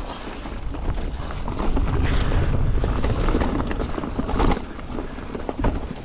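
Mountain bike climbing a rocky dirt trail: tyres crunching over roots and rock with rattles and knocks from the bike, over a steady wind rumble on the camera microphone.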